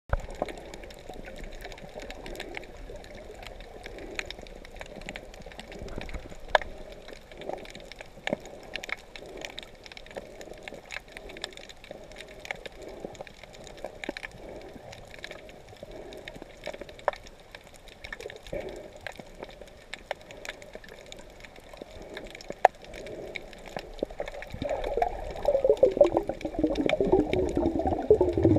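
Underwater sound picked up by a camera in a waterproof housing: muffled water noise with scattered sharp clicks, and a louder burst of bubbling and gurgling starting about 25 seconds in.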